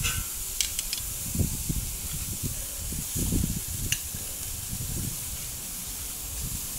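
Rump steaks sizzling on a hot charcoal grill grate as they are laid down with metal tongs, a steady hiss with a few light clicks of the tongs on the grate. Irregular low rumbling runs underneath.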